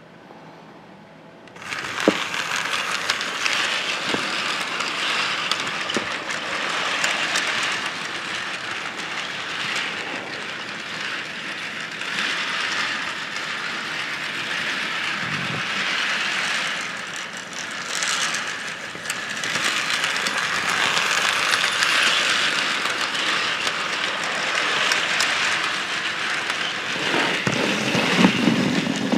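HO scale model train, an Illinois Central 2-8-2 steam locomotive pulling freight cars, starting to run about two seconds in: a steady mechanical running noise from the motor, gears and wheels on the track, with scattered clicks. It gets louder near the end as the cars pass close by.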